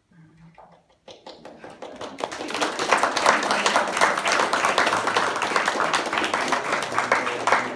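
Audience applauding: clapping starts about a second in, builds quickly and then holds steady.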